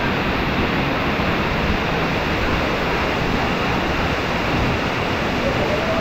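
Waterfall pouring into its plunge pool close by: a loud, steady rush of falling water.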